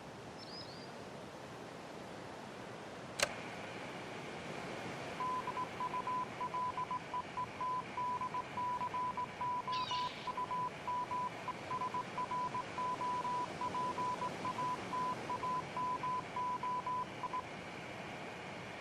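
Morse code: a steady tone of about 1 kHz keyed on and off in short and long marks (dots and dashes) for about twelve seconds, starting about five seconds in. A single sharp click comes about three seconds in, over a steady background hiss.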